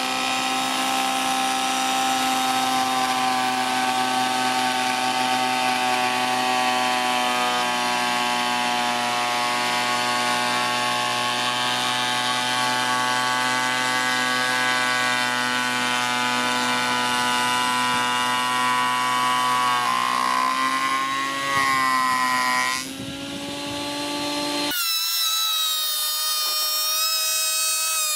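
Parkside PADM 1250 planer-thicknesser running in thicknessing mode at a 0.5 mm cut on oak, a loud steady machine whine. The pitch wavers about two-thirds of the way through. Near the end the sound changes abruptly to a thinner, higher whine with the low part gone.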